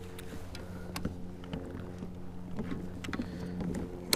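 Steady low hum with scattered light knocks, clicks and small splashes of rod, net and water as a bass is worked to the net beside a fishing kayak.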